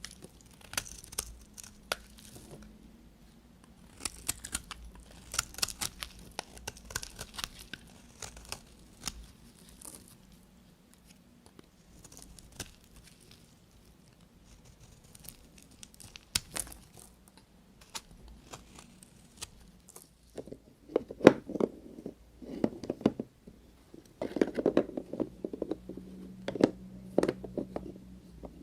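A knife cutting through bars of soap: many short crisp crackles, then, from about two-thirds of the way in, louder deeper crunches.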